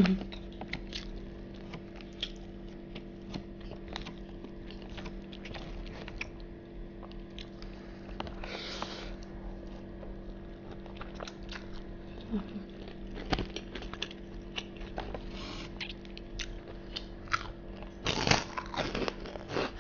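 Close-miked chewing and mouth sounds of rice and fried chicken eaten by hand: many soft wet clicks and smacks, with a few brief, louder noisy bursts about nine seconds in and again near the end. A steady low hum runs underneath.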